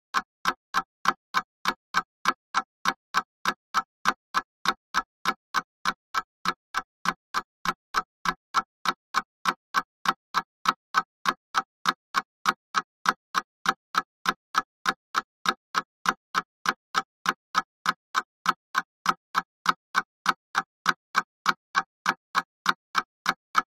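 Mechanical clock ticking in a quick, perfectly even rhythm, several sharp ticks a second, each one alike.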